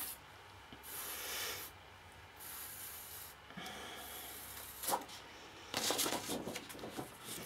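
Faint rubbing and sliding of a sheet of cardstock being handled and turned over on a table: several soft swishes, a light tap about five seconds in, then a quick run of scrapes and rustles near the end.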